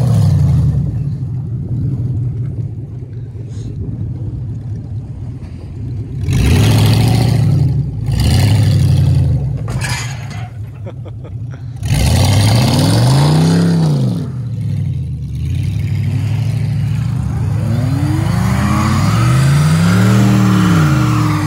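Vehicle engines revving hard in several bursts, each rising and falling in pitch, with lower steady running between them: a pickup truck and then a small car.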